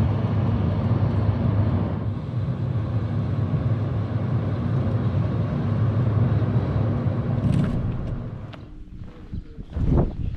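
Car on the move, with steady road and engine rumble heard from inside the cabin, fading out about eight seconds in. A few sharp thumps follow near the end.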